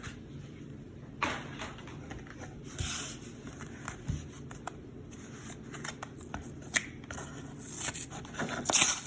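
Pokémon trading cards and their pack wrapping being handled: scattered rustling and crinkling with a few sharp clicks, busiest near the end.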